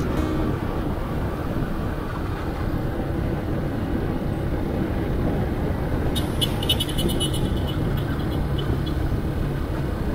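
A motorcycle riding at speed through town traffic: the bike's engine running steadily under continuous road and wind noise, with a stretch of rapid faint high clicking in the second half.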